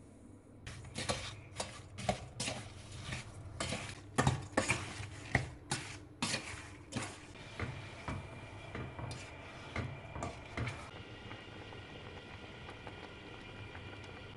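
Wooden spoon stirring orange pieces and sugar in a stainless steel pot, knocking against the pot about once or twice a second. About three-quarters of the way through, the knocking stops and the orange syrup bubbles steadily at the boil.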